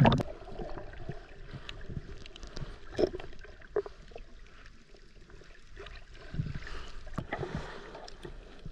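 Underwater sound picked up by a submerged camera: muffled water movement with many scattered small clicks, and a couple of louder knocks about three seconds in.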